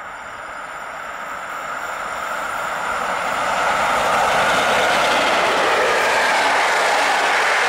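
EP07 electric locomotive and its passenger coaches approaching and passing: a rushing of wheels on rail that grows steadily louder over the first four seconds, then holds steady as the coaches go by.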